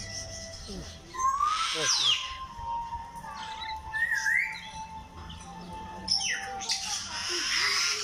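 White cockatoos screeching: harsh screeches about a second in and around four seconds in, then a longer one over the last two seconds. A thin steady tone runs through the middle.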